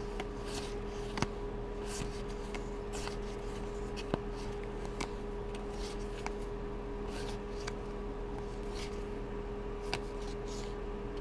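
Magic: The Gathering playing cards being slid one behind another in the hands, making soft papery swishes about twice a second with a couple of sharper clicks, over a steady electrical hum.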